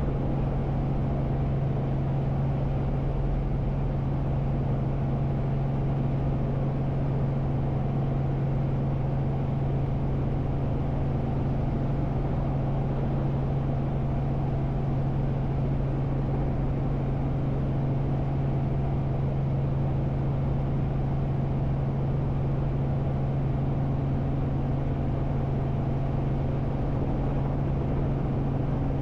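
Robinson R44 Raven II helicopter heard from inside the cabin while hovering: its six-cylinder Lycoming piston engine and rotors make a steady drone with a strong low hum, unchanging throughout.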